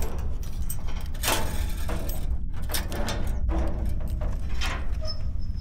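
Keys rattling and the metal lock and bolt of a barred cell door clanking as the door is unlocked and opened: a run of irregular clicks and rattles over a steady low hum.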